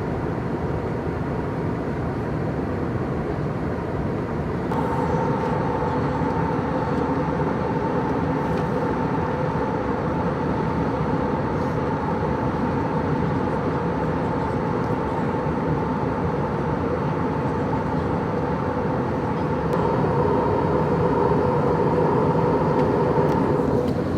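Steady drone of an Airbus A320neo airliner heard inside the cabin: engine and airflow rumble with a steady hum that grows louder about five seconds in and again near the end, as the engine power changes.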